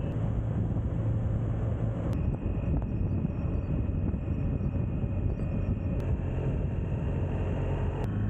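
Motorcycle engine running steadily under a constant rush of road and wind noise.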